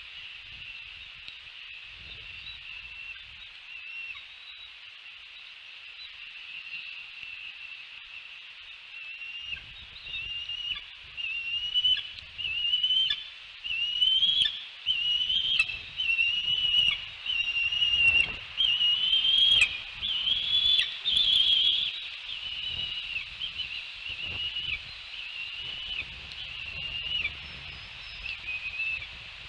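Bald eagles calling: a long series of high, thin chirping whistles, each note rising and dropping, quiet at first, loudest from about ten seconds in, then easing off near the end.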